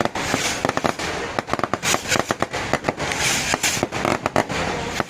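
Fireworks going off: a rapid, irregular string of sharp bangs and crackling, with short spells of hiss between the reports.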